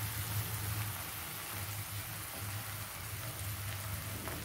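Cassava crackers frying in shallow oil in a wok: a steady, even sizzle, with a low hum underneath.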